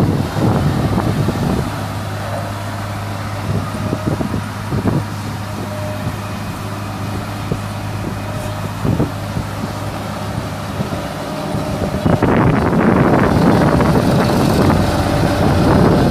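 Road roller engine running steadily, with a few light knocks, getting clearly louder about twelve seconds in.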